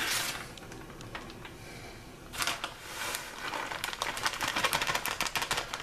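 Shredded cheddar cheese being shaken from its plastic bag and spread by hand over a casserole in an aluminium foil pan: crinkling, with a rapid run of small crackles from about two and a half seconds in after a quieter start.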